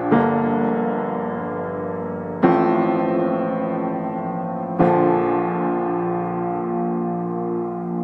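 Background music: slow, sustained piano chords, a new chord struck about every two and a half seconds and left to fade.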